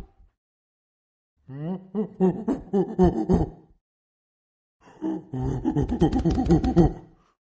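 Golden snub-nosed monkey calling: two bouts of harsh, rapidly pulsing calls of about two seconds each, with a pause of about a second between them.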